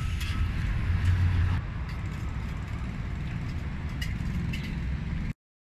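Outdoor street noise: a steady low rumble of road traffic with faint ticks over it, cut off abruptly to silence near the end.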